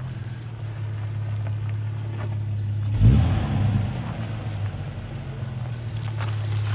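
Nissan GQ Patrol's TB42 straight-six petrol engine running low and steady as the 4WD crawls over a deeply rutted dirt track, with one loud thump about three seconds in.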